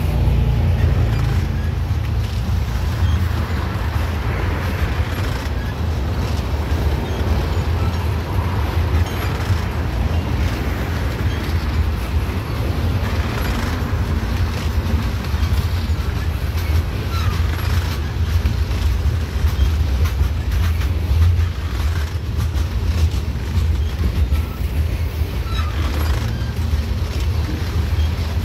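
Freight train of tank cars rolling past at close range: a steady rumble of steel wheels on the rails.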